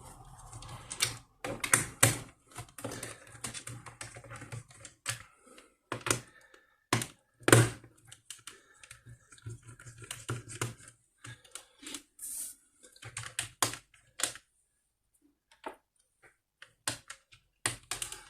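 Irregular clicks and taps of a screwdriver and hands on a laptop's plastic case as its screws are undone.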